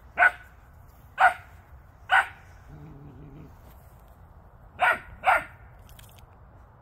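Rough collie barking: five short, sharp barks, three about a second apart, then two in quick succession near the end.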